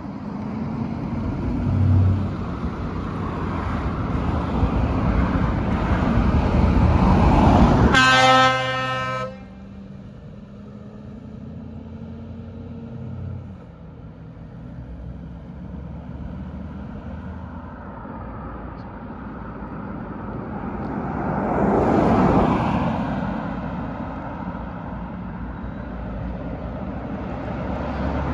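A truck drives past with its engine noise building up, then gives one loud air horn blast about a second long, about eight seconds in. Its engine hum then fades away, and a second truck passes, loudest about twenty-two seconds in.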